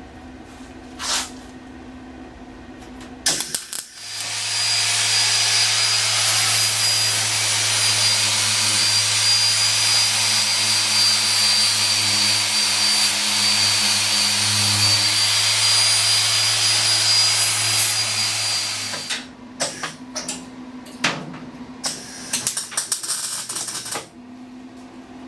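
Angle grinder starting about four seconds in, running loud and steady with a high whine for about fifteen seconds on sheet-metal truck-box work, then cutting off. Scattered sharp clicks and crackles follow for a few seconds.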